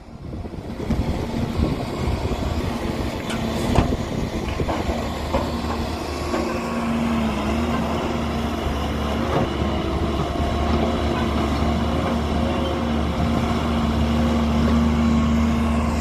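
Heavy diesel machinery running steadily at a quarry loading site, a low engine hum with a steady drone that grows slightly louder toward the end, and a sharp knock about four seconds in.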